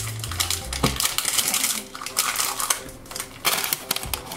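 Crinkling and crackling of a thin plastic wrapper bag handled between the fingers, with small clicks of a plastic toy container and lid: a blind-box toy being opened.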